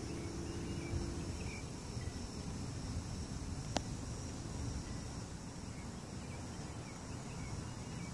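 Steady high-pitched chorus of insects such as crickets, over a low, even outdoor rumble. There is one sharp click about halfway through.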